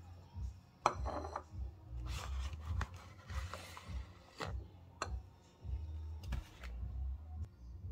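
Metal spoon scooping cornstarch and knocking against a small ceramic bowl: a handful of light clinks and taps, one with a short ring about a second in, over a low handling rumble.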